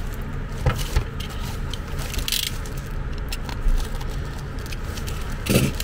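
Black plastic mailer bag crinkling and rustling as it is handled and slit open with a craft knife, with scattered small taps and scrapes, over a steady low hum.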